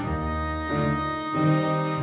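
Background music with sustained, string-like chords that change about every half second.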